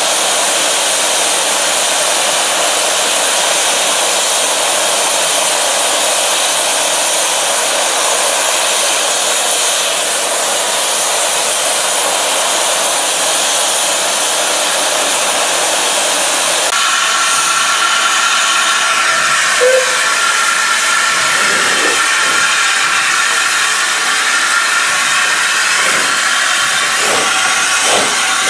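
BR Standard Class 8 Pacific 71000 Duke of Gloucester blowing off steam in a loud, steady hiss. About two-thirds through the hiss changes, and the first exhaust beats follow, coming quicker and quicker as the locomotive starts away.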